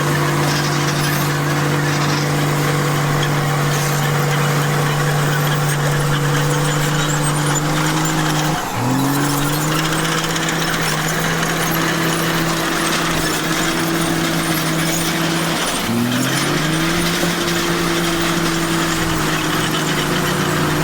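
Komatsu bulldozer's diesel engine running steadily, its pitch dropping sharply and climbing back twice, once about nine seconds in and again about sixteen seconds in.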